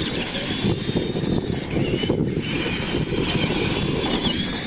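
Radio-controlled monster trucks racing on dirt: a high whine from their motors and gears that wavers in pitch with the throttle, over a steady low rumble.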